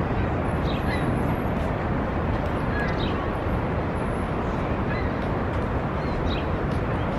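Birds chirping briefly several times over a steady outdoor rushing noise.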